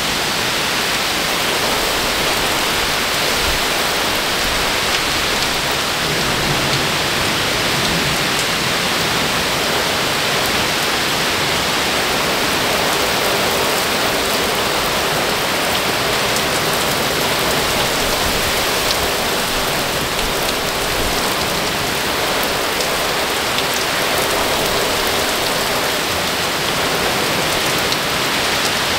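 Very heavy thunderstorm rain pouring down in a steady, unbroken downpour.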